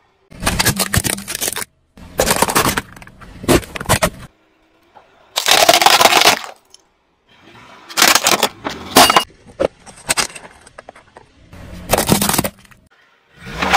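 A run of short separate bursts of hard plastic cracking and crunching as a car tyre rolls over and crushes plastic toys and plastic cups. There are about six bursts, each cut off suddenly.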